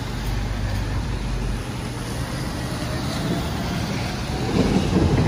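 Traffic on a wet city street: car tyres hiss on the wet asphalt as vehicles drive past. One passes close and gets louder about four and a half seconds in.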